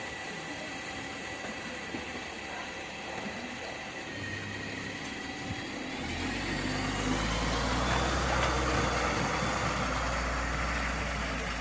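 LiAZ-5292.65 city bus idling at a stop, then pulling away about halfway through: the engine grows louder and a rising whine comes in as it accelerates, easing off as the bus moves away.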